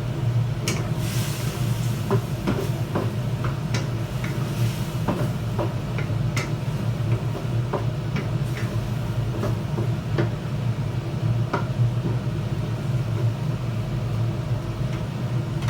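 Scattered clicks and taps of a cooking utensil against a pan during stir-frying, over a steady low hum, with a brief sizzling hiss about a second in.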